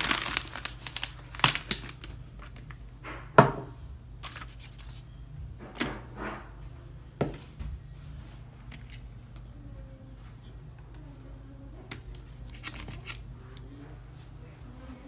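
Crinkling of a plastic sterilization pouch being handled, followed by several sharp clicks and knocks of items being set down on a countertop, the loudest about three and a half seconds in. A low steady hum continues underneath.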